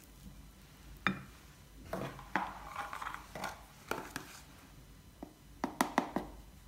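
Kitchen utensils knocking against a ceramic mixing bowl: a silicone spatula working crumbly tart dough, with scattered knocks, then a quick run of sharp clinks near the end as a metal sieve and a flour container are handled over the bowl.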